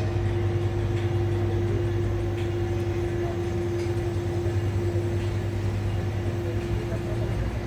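Metrolink commuter train running steadily, with a constant low hum and a steady mid-pitched tone.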